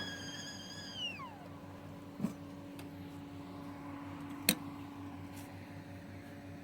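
Kettle whistling at the boil with a steady high tone. About a second in the pitch slides down and the whistle dies away. Then come a couple of sharp clicks, the louder one about four and a half seconds in, over a steady low hum.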